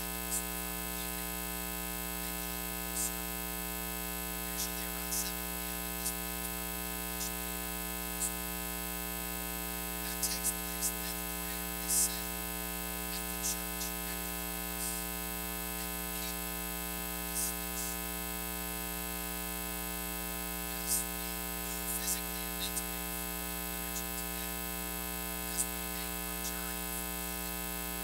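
Steady electrical mains hum and buzz from the recording or sound system, with faint high ticks scattered every second or so.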